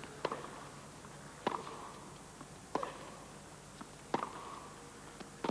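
Tennis ball struck back and forth in a baseline rally: five sharp racquet hits about one and a quarter seconds apart, with a faint crowd hum between them.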